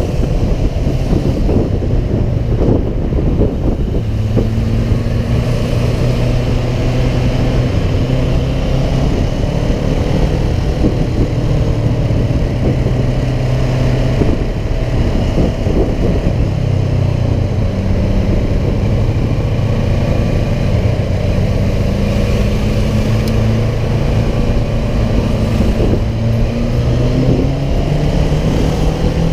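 Motorcycle engine running at low road speed, its pitch drifting up and down with small throttle changes, with wind rumbling across the microphone.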